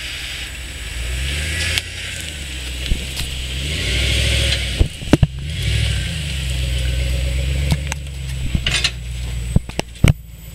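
2008 Chevy Silverado's 5.3 V8 through a Flowmaster Super 40 exhaust, revving up and down as the truck crawls through and out of a dry ditch. Several sharp knocks and clunks come through, the loudest about five seconds in.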